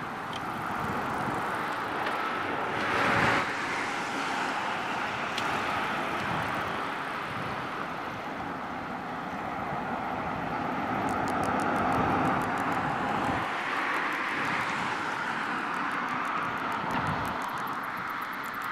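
Steady rush of road traffic on a highway, swelling and fading as vehicles pass, with a faint rapid ticking in the second half.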